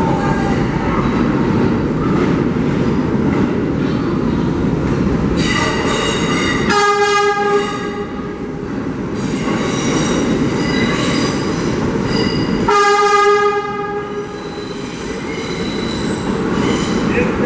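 New York City Subway D train pulling into a station, its wheels rumbling steadily on the rails. The horn sounds twice, about six seconds in and again about thirteen seconds in.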